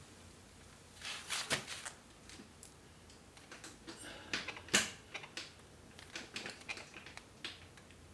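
Irregular small clicks and taps of hand work on a Singer 348 sewing machine's needle bar rocker arm, as parts and tools are fitted at the bottom rocker stud. The sharpest knocks come about one and a half seconds in and just before the five-second mark.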